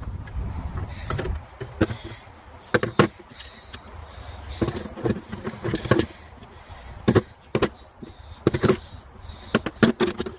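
Irregular clicks and knocks of hand tools and car parts being handled while dismantling around the engine's turbo, a dozen or so sharp strikes at uneven intervals, several close together near the end.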